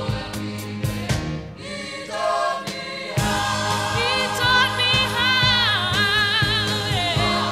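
Background music: a song with singing over a band with a regular beat, growing fuller about three seconds in.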